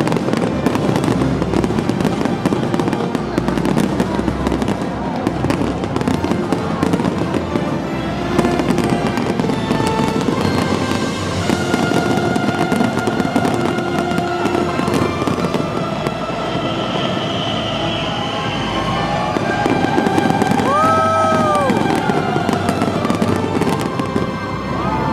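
A fireworks display: a dense, unbroken run of bangs and crackling bursts, with music playing under it.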